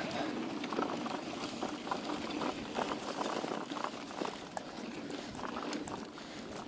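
Mountain bike riding fast over a dry, sandy dirt trail: a steady rush of tyre noise on loose ground, with many small clicks and rattles from the bike.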